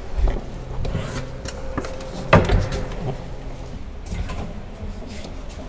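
A single dull thump about two and a half seconds in, over a low steady hum, as a person climbs into a car's driver seat and sets a foot down in the footwell.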